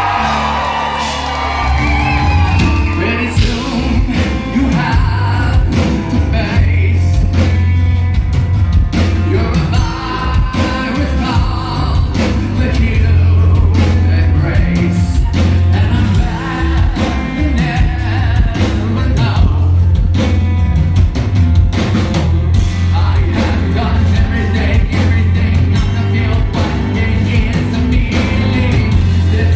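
Live rock band playing loud, with a heavy, sustained bass and pounding drums under a male singer.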